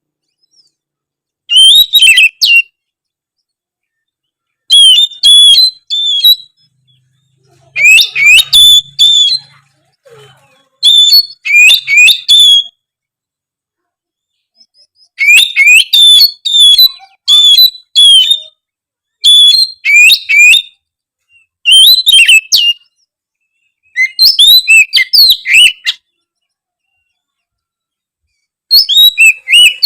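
Oriental magpie-robin in full song: loud bursts of rapid whistled and chattering notes, each phrase a second or two long, separated by short pauses.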